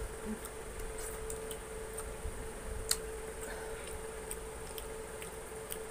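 Quiet eating sounds: scattered small clicks and ticks as fingers pick at chicken bones and scraps on a wooden board, with one sharper click about three seconds in, over a steady low hum and a faint high drone.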